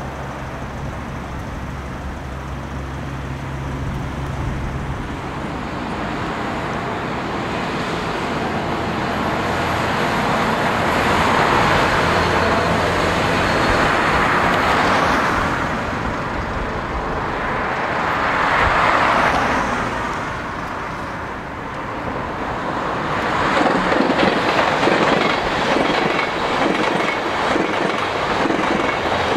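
Road traffic passing on a viaduct: a low engine drone that stops about five seconds in, then heavy vehicles going by in two loud swells. About two-thirds of the way through, a passenger train hauled by an electric locomotive passes, its wheels clattering rapidly over the rail joints.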